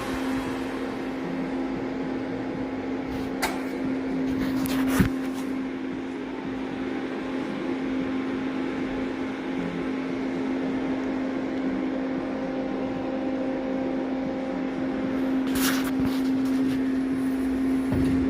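Steady machine hum with a fan-like whir, broken by a few sharp clicks about three and five seconds in and a short cluster of them near the end.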